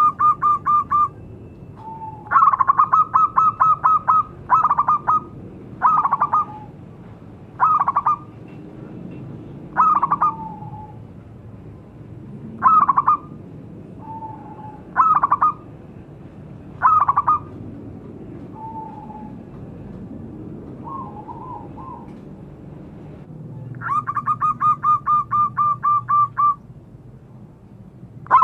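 Zebra doves (perkutut) singing: phrases of rapid staccato cooing notes, about a second or two each, repeated every couple of seconds, with soft single coos between. The calls thin out past the middle and a long phrase comes in near the end.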